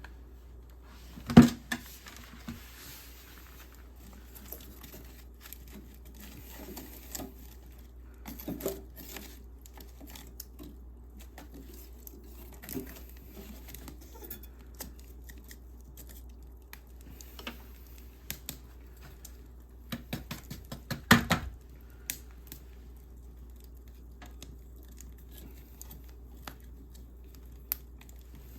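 Things being handled: scattered clicks, knocks and rustling over a low steady hum, with one loud knock about a second in and a quick run of clicks and knocks around twenty seconds in.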